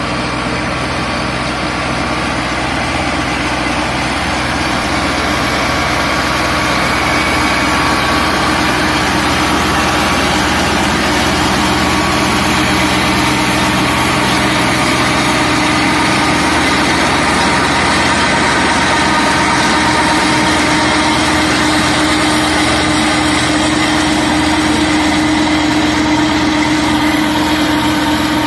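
Tractor engine running steadily under load, driving a PTO-driven flail mulcher that shreds crop stubble.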